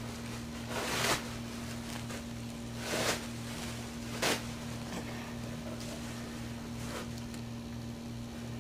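Steady low hum with three short rustles of towels and bedding as a hand moves over them, about one, three and four seconds in.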